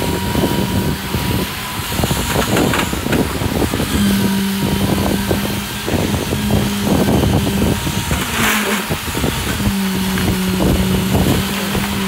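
Truck-mounted concrete boom pump running during a pour, with a steady hum that stops and restarts several times as the pump strokes. Over it come irregular slaps and splatters of wet concrete gushing from the end hose onto the slab.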